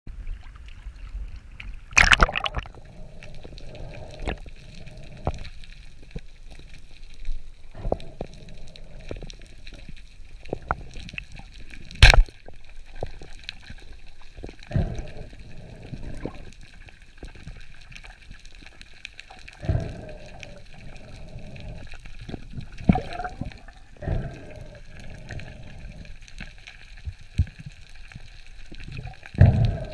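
Sea water sloshing and gurgling around a camera at the surface and under water during a breath-hold dive, with repeated muffled thumps and one sharp knock about twelve seconds in.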